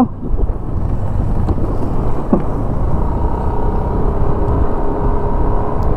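Wind rushing over a helmet-mounted microphone while a Yamaha scooter rides slowly over a cracked, potholed road, with the scooter's engine and tyres running underneath. A faint steady hum comes in about halfway through.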